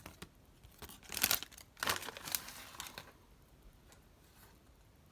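A Donruss football card pack wrapper being torn open and crinkled, in two short rustling bursts about a second and two seconds in.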